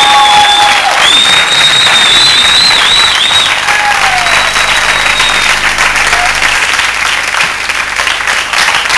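Studio audience applauding and cheering, a dense steady clapping that eases slightly near the end. High shrill whistling rides over it for the first few seconds.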